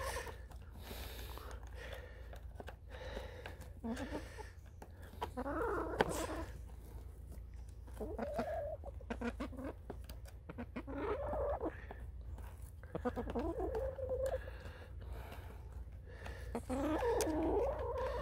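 Hens clucking, short low calls every couple of seconds, with a few sharp clicks in between.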